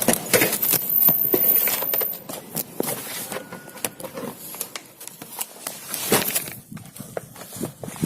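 Handling noises as gear is packed into a bag: irregular clicks, knocks and rustling, busiest in the first two seconds and again about six seconds in.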